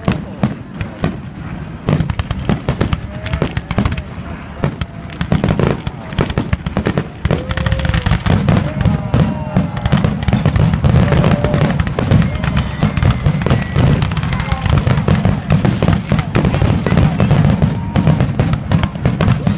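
Fireworks grand finale: a rapid, continuous barrage of shell bursts and crackling reports that grows denser and louder about halfway through.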